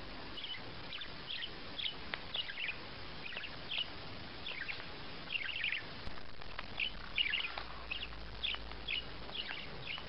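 A small bird chirping over and over, short high chirps about two a second, over a steady background hiss.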